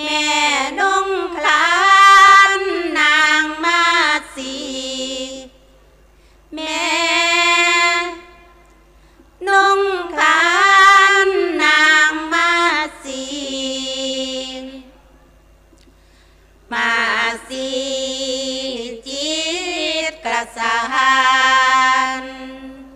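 A woman singing Thai Buddhist sarabhanya verse solo and unaccompanied into a microphone, with a wavering, ornamented melody. She sings in four long phrases, with short breaks between them.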